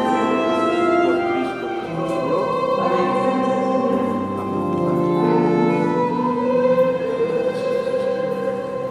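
Slow music with long held notes: strings with singing.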